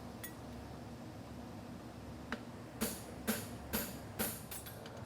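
Hand hammer striking a punch into a hot steel horseshoe on the anvil, punching nail holes: five sharp ringing blows about two a second, starting just past the middle.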